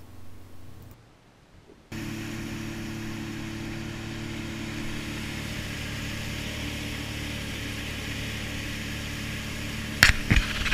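Jet ski engine running at a steady, unchanging speed, an even hum with no revving. A few loud sharp knocks near the end.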